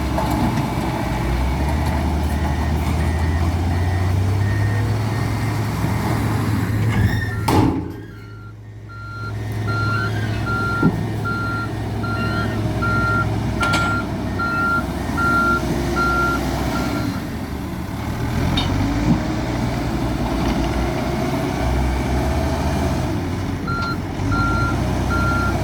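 Hidromek 102S backhoe loader's diesel engine working under load while pushing fill, with its reversing alarm beeping in an even rhythm for long stretches as it backs up. The engine drops off briefly about eight seconds in, and a few sharp knocks stand out over it.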